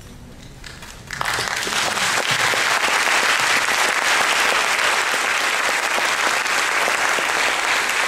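Audience applauding, starting about a second in and then going on steadily with many hands clapping.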